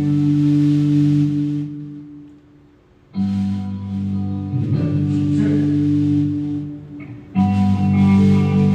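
Live band playing held chords on guitar and keyboard. The chord cuts off under two seconds in and dies away to near quiet for about a second. Then the band comes back in with a new chord and changes chord again near the end.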